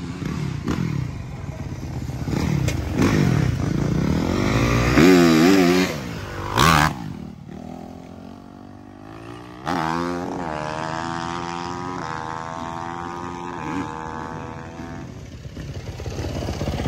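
450cc dirt bike engines revving and accelerating hard, the pitch climbing and dropping again and again as the throttle is worked and gears change, with a brief loud blast about seven seconds in. From about ten seconds in another bike pulls through the gears with a climbing, then steady, engine note, growing louder near the end.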